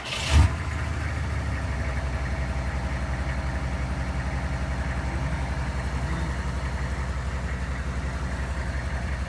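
GM 6.5L V8 diesel in a GMC pickup catching with a loud burst about half a second in, then settling into a steady idle with an even, rapid clatter. The owner traces the clacking from this engine to a worn crankshaft pulley slapping around.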